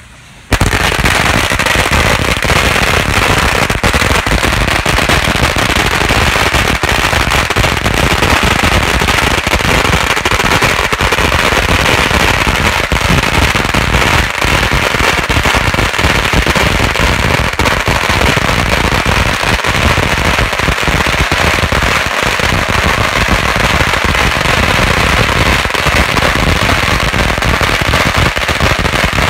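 A long string of red firecrackers going off in a dense, unbroken rapid-fire crackle of bangs, starting abruptly about half a second in.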